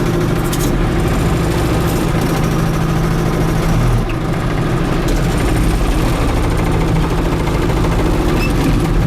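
The 1990 410C backhoe loader's diesel engine runs steadily while the machine works into a frozen dirt pile. The engine sound dips briefly about four seconds in.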